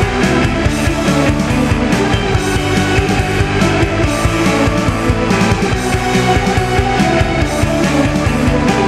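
Rock music: a band with guitar playing over a steady drum beat.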